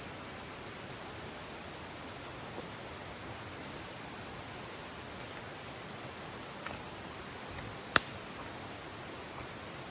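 Wood campfire burning: a steady hiss with a few faint crackles and one sharp pop about eight seconds in.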